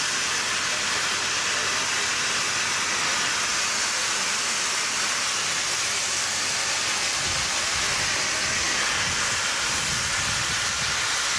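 Peppercorn A1 Pacific steam locomotive Tornado letting off steam: a loud, steady hiss, with an uneven low rumble joining in about seven seconds in.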